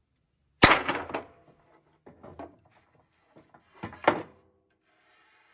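Old glued joints in a cherry headboard cracking and creaking as they are popped apart, the old glue giving way. There are two sharp cracks, one less than a second in and one about four seconds in, with smaller creaks and pops between them.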